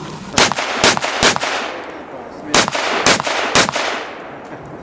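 Six rifle shots fired in two quick strings of three, each shot about half a second apart, with a pause of about a second between the strings; each shot leaves a short echo.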